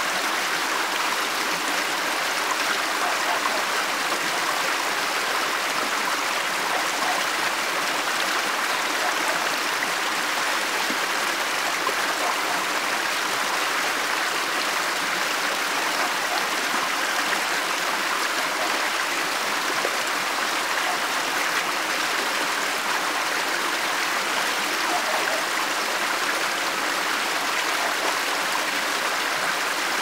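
Mountain stream flowing steadily over small rock cascades, a constant even rush of water.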